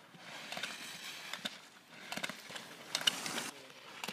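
Skis carving and scraping on hard-packed snow through a run of slalom turns, heard as three swells of scraping hiss with short sharp ticks mixed in.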